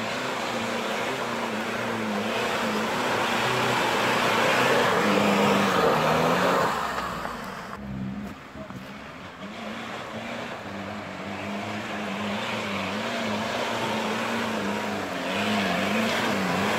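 Off-road vehicle's engine revving, its pitch wavering up and down. It grows louder over the first six seconds, drops away about eight seconds in, then builds again.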